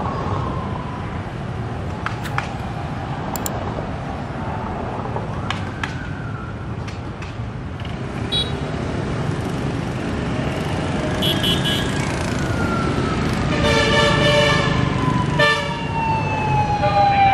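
Convoy escort sirens wailing in slow falling sweeps over city traffic of motorbikes and cars. Horns honk twice in the second half, the second blast the longer, and the traffic grows louder near the end as the vehicles draw close.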